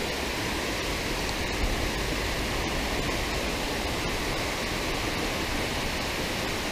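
Water pouring over a small concrete lake spillway into the pool below: a steady, even rushing.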